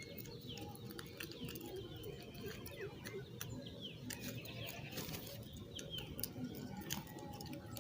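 Birds chirping in many short, quick notes, overlapping throughout, with scattered sharp clicks.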